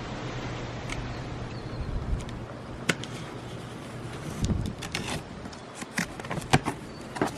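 Cardboard box being opened and handled: rustling and scraping with many sharp clicks and knocks, busier in the second half.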